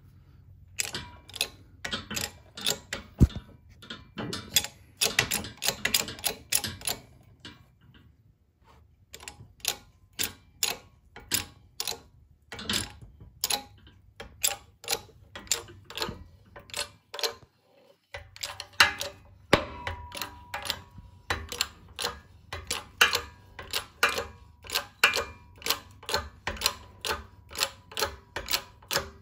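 Hydraulic press working to push an old crankshaft bearing sleeve out of an aluminium ATV engine case: a long run of sharp clicks, several a second, with two short pauses.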